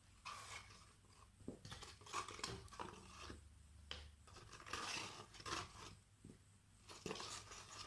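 Faint rustling and scattered light taps of paper and cardstock being handled as a handmade paper explosion box is opened.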